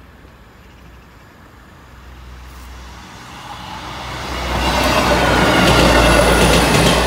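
Class 158 diesel multiple unit approaching and passing over a level crossing at speed: a rumble of engine and wheels on rails that builds from about two seconds in and is loudest near the end.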